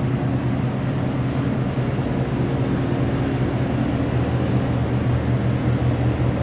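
Steady low mechanical hum under a broad hiss, the sound of an air-conditioning unit running.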